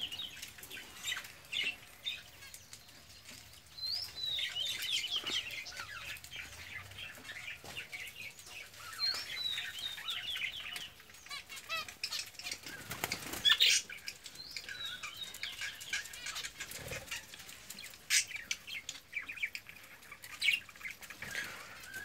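Aviary cage birds, budgerigars and finches, chirping in runs of short, high, falling calls, with now and then a brief wing flutter.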